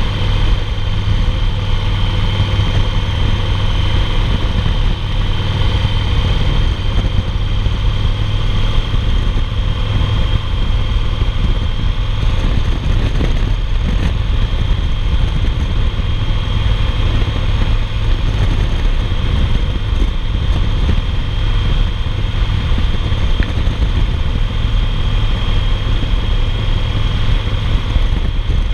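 A 2008 Yamaha Roadliner's V-twin engine runs steadily at cruising speed, mixed with the rush of wind and road noise while riding.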